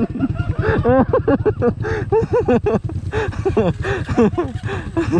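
Dirt bike engines running at low speed on a trail, with people talking over them.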